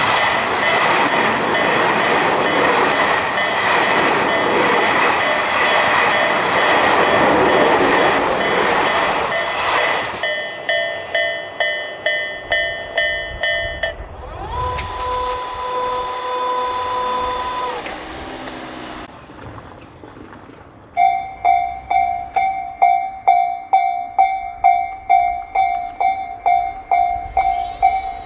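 Japanese railway level-crossing warning bells ringing in an even clanging rhythm, with a passing train's rush under them for the first ten seconds. The bell then rings alone and stops suddenly, a steady tone sounds for a few seconds, and a different crossing's bell, higher and faster, starts ringing about three-quarters of the way through.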